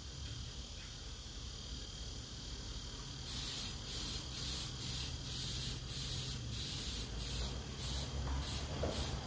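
Aerosol spray-paint can sprayed in short hissing bursts, about two a second, starting about three seconds in, as missed spots on a canoe hull are touched up. A low steady hum sits under it.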